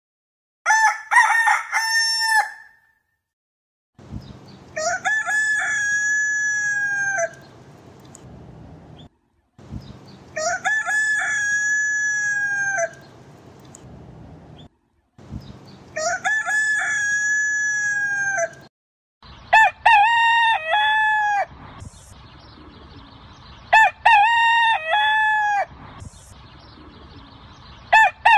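Village roosters crowing again and again: about seven long crows of two to three seconds each. The crows from about two-thirds of the way in have a different rise-and-fall shape from the earlier ones. A low, steady background hiss fills the gaps between crows.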